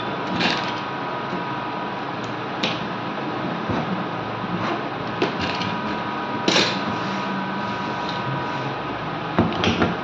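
Scattered light knocks and clicks as a washing-machine control board and its plastic housing are handled on a workbench, the sharpest about six and a half seconds in and a quick cluster near the end. Under them runs a steady background hiss with a faint hum.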